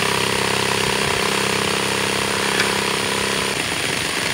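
Cordless drill running a homemade shaker screen (soil classifier): a steady motor hum with the screen rattling as it sifts dirt. About three and a half seconds in the steady hum drops out, leaving an uneven rattle.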